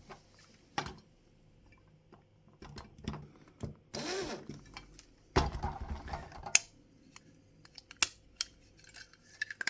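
Scattered clicks, taps and two short bouts of scraping and rattling as a small plastic part is worked loose from inside a diecast model bus body.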